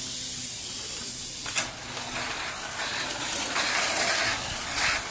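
Steady hissing with a sharp click about one and a half seconds in, after which the hiss turns rougher and uneven.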